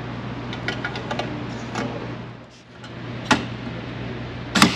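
Rivet gun setting pop rivets through a wind diffuser into an LED light bar: a few light clicks, then sharp cracks about three seconds in and again near the end as the rivet stems snap off. A steady low hum runs underneath.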